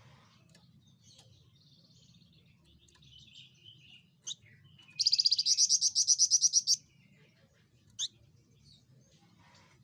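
Javan fulvetta calling: faint high chatter, then a single sharp note, then a loud rapid trill of about nine notes a second lasting nearly two seconds, followed by another single short note.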